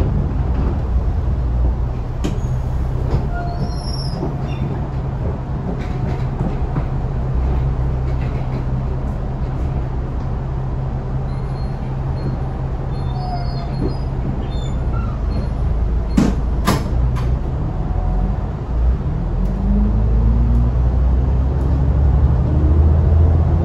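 Alexander Dennis Enviro500 MK2 Euro 3 double-decker bus's diesel engine heard from inside the lower deck, running low and steady, then pulling away with a rising engine and drivetrain note in the last few seconds. Two sharp clicks come about two-thirds of the way through.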